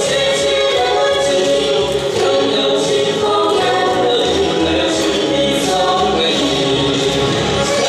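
A woman singing into a microphone over amplified backing music with a steady beat and percussion.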